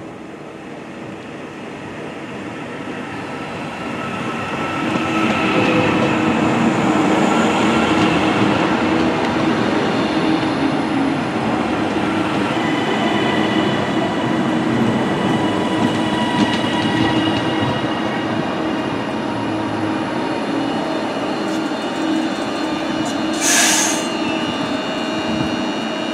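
TransPennine Express Class 397 electric train running into the platform and slowing. It grows louder over the first few seconds, and steady squealing tones from the wheels and brakes run through it as it draws in. A short hiss comes near the end.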